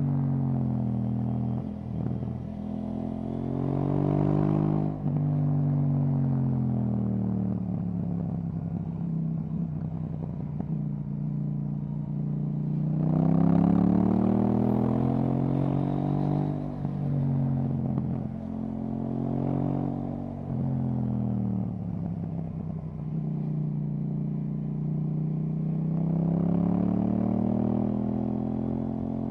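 KTM 790 Duke's parallel-twin engine through an Akrapovic exhaust while riding: the engine note rises under acceleration, drops suddenly at gear changes and falls back on deceleration, several times over.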